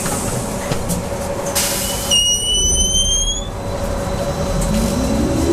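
Inside a BKM 43300D trolleybus at a stop, over a steady hum: the doors close with a short hiss of air, then there is a brief rising whistle. About four and a half seconds in, the electric traction motor's whine starts, rising in pitch as the trolleybus pulls away.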